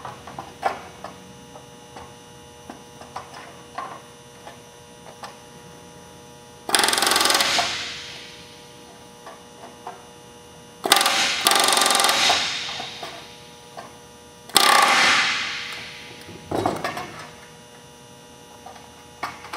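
Pneumatic rivet gun with a flush rivet set driving flush rivets into a sheet-metal patch against a bucking bar: three bursts of rapid hammering, a second or so each, the second broken into a short and a longer run. Light clicks of tools being handled come before them, over a steady electrical hum.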